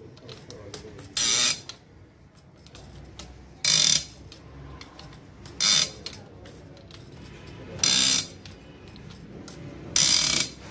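Five short, loud bursts of mechanical clicking about two seconds apart, with quieter workshop noise between them.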